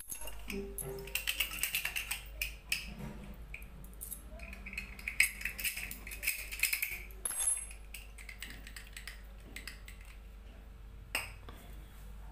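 A steel padlock and a bunch of keys being handled and set down on a hard table: metal clinking and keys jingling for several seconds, then a single click near the end.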